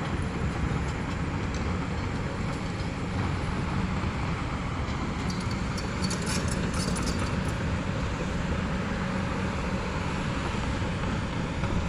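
Excavator's diesel engine running steadily while it demolishes a house front, with a scatter of faint crackles and snaps about five to seven seconds in.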